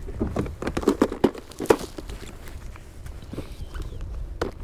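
Fishing tackle being handled while a hard lure is changed: a quick run of small clicks and knocks that thins out after about two seconds, with one more knock near the end.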